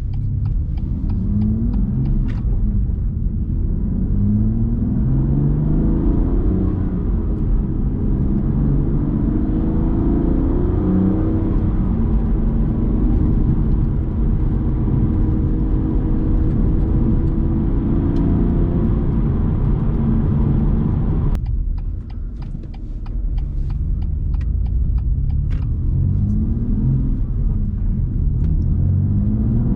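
BMW M2 Competition's twin-turbo straight-six accelerating through the gears on the move, its pitch climbing and dropping back at each shift over a steady low drone. The exhaust is resonator-deleted but keeps its petrol particulate filter, so it stays fairly subdued.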